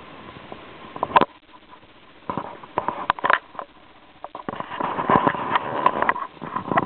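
Irregular rustling, scraping and bumps close to a handheld camera's microphone, loudest in a cluster from about halfway through, over a faint steady high tone.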